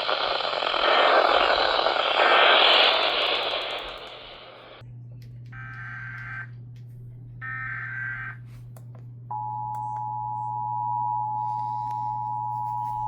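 A hiss of radio static cuts off sharply about five seconds in. It is followed by two bursts, each about a second long, of Emergency Alert System SAME header data tones. Then the steady two-tone EAS attention signal starts about nine seconds in, announcing a severe thunderstorm warning.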